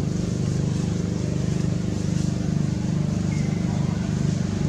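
A steady low engine hum with fine even pulsing, as from a motor running at a constant idle.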